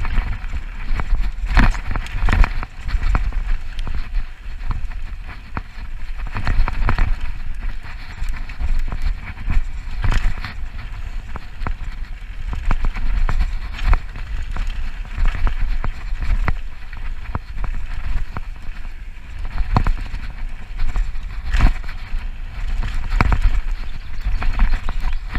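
Downhill mountain bike rolling fast down a rough dirt trail: a continuous low rumble from the tyres, with frequent irregular knocks and rattles from the bike as it hits bumps and roots.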